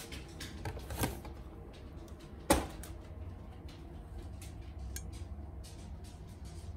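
Kitchen cabinets being handled: a knock about a second in and a sharper, louder clack about two and a half seconds in, like a cabinet door or item shutting or being set down, with light clicks in between.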